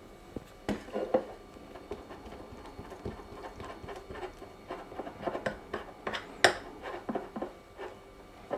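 A spoon stirring and scraping a thick paste of butter, honey and turmeric in a small dish: irregular light clinks and scrapes, with one sharper clink about six and a half seconds in.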